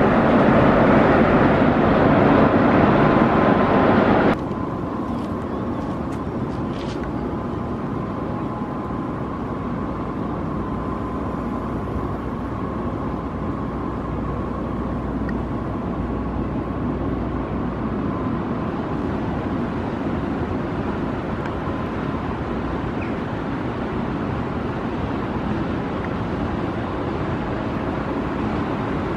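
Steady outdoor machinery hum and background noise with a faint constant whine. It is fuller and louder for the first four seconds, then drops abruptly to a quieter, even level that holds.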